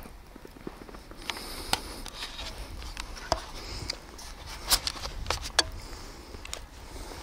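Handling noise from a handheld camcorder being turned round and gripped: irregular sharp clicks and rustling over a low rumble.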